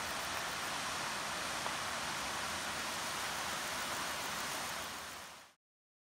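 Steady rush of a straight-drop waterfall about 12 m high, heard across a valley. It fades out over the last second or so and cuts off.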